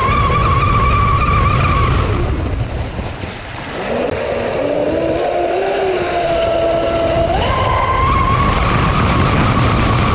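Traxxas M41 RC catamaran's brushless electric motor whining at full throttle, easing off about two seconds in, then winding back up in steps from about four seconds to a steady high whine again. Under it runs the low rush of water on the hull.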